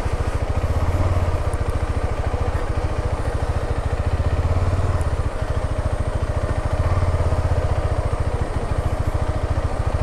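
KTM 390 Adventure's single-cylinder engine running at low revs while the motorcycle is manoeuvred slowly, a steady rapid pulsing that swells a little in revs about a second in, around four seconds and around seven seconds.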